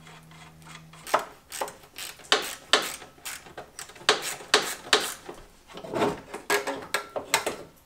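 Irregular clinks, knocks and scrapes of hand tools and the headlight's mounting screws and metal bracket being worked loose and handled. A steady low hum stops about a second in.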